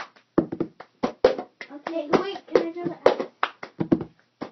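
Cup-song rhythm: quick, even hand claps mixed with a cup being tapped, knocked and set down on a tabletop.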